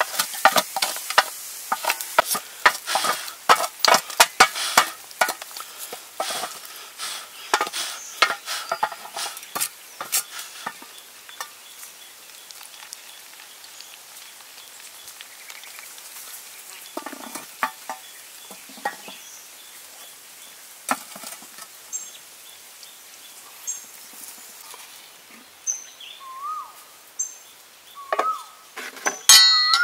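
A stick scraping and brushing ash and embers off the lid of a metal cooking pot, a dense run of scratches and clicks for about ten seconds. After that it goes quieter, with a few faint short chirps and a sharp metal clink near the end.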